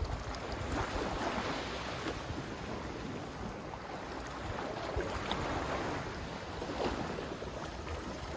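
Sea waves washing in repeated soft swells, with wind rumbling on the microphone.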